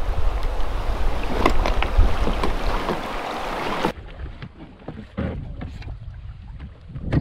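Strong wind buffeting the microphone, with waves lapping at a pebble shore. About four seconds in it cuts to a quieter, muffled sound of paddling a canoe on choppy water: scattered knocks of the wooden paddle against the canoe and water splashing, with one louder knock near the end.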